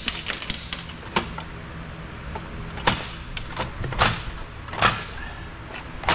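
Metal parts inside a stripped copier chassis clicking and knocking as they are worked loose by hand, a sharp tap every second or so, over a steady low hum.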